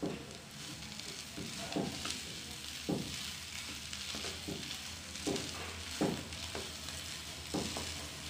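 A wooden spatula stirring and pressing a potato-and-pea filling in a non-stick frying pan. Soft, irregular knocks and scrapes come about once a second over a light sizzle.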